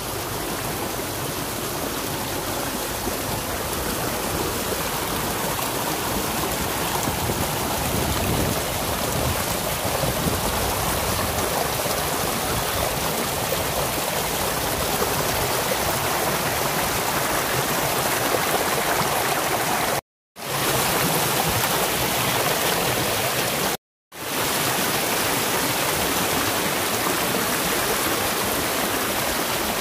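A steady rushing noise, like flowing water, broken twice by a split-second of complete silence.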